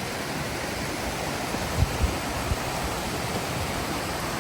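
Steady rush of water flowing over a waterfall. A few short, low thumps come about two seconds in.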